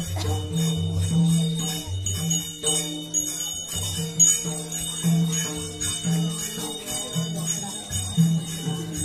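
Music with bells jingling throughout over a repeating low bass line.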